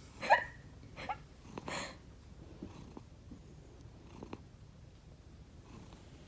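Domestic cat snoring in its sleep: a few short, squeaky, irregular snorts in the first two seconds, the loudest about a third of a second in, then only faint breathing.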